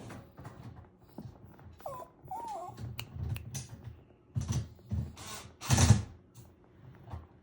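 Knocks, clicks and clatters of hands and tools working on a dishwasher door while its latch is screwed back in, the loudest knock a little before the end. About two seconds in, a dog gives a short wavering whine.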